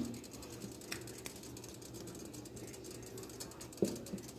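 A metal slotted spoon clinking against a stainless steel pan of thick meat sauce: a few light clicks, then one sharp knock near the end, over a steady low hum.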